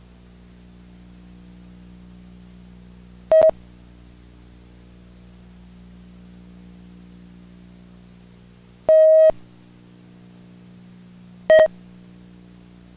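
Three loud electronic beeps at one mid pitch over a steady electrical hum: a short one about three and a half seconds in, a longer one about nine seconds in, and another short one near eleven and a half seconds. The hum cuts out during the longer beep.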